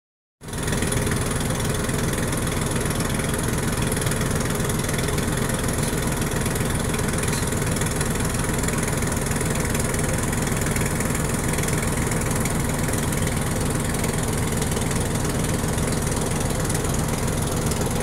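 A boat's engine idling steadily, a low, even running sound with no change in pace.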